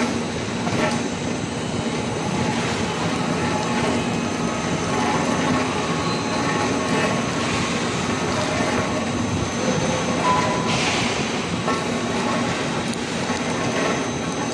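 Steady mechanical rumble and clatter of a running induction melting furnace and its workshop, with a faint high steady whine over it.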